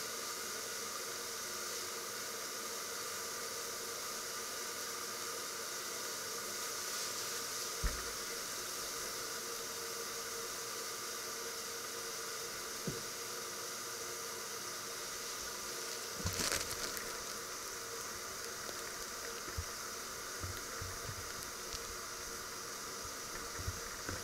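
Steady hiss of food heating in pots on an electric hob, with a few light clicks and knocks now and then.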